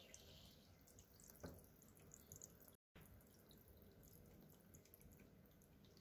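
Near silence: faint room tone with a few soft ticks and a single click about a second and a half in, cutting out completely for a moment just before the middle.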